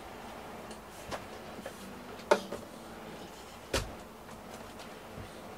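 A few sharp knocks and clicks, like small hard objects being handled, over a faint steady hiss; the two loudest knocks fall a little past two seconds in and near four seconds in.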